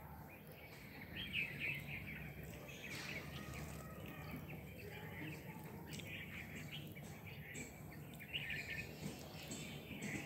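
Small birds chirping and twittering in short bursts, busiest about a second in, around three seconds in and near nine seconds in, over a steady low background hum.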